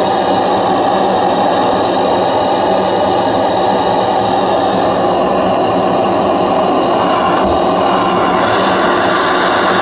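Gas burner flame blowing steadily into a small homemade furnace of aerated concrete blocks, a continuous even rushing noise as it heats the crucible to melt silver.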